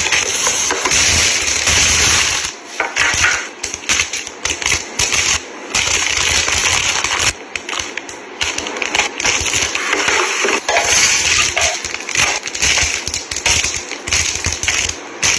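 Plastic snack wrappers and a plastic bag crinkling and rustling as packets are handled and stood in clear acrylic organizer bins, with irregular light knocks of packaging against the plastic.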